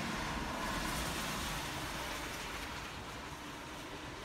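Car tyres hissing on a wet road, fading as the vehicle moves away.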